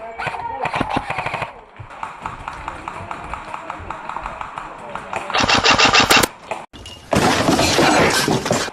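Airsoft guns firing full-auto bursts of rapid clicking shots, several bursts, the loudest and longest near the end.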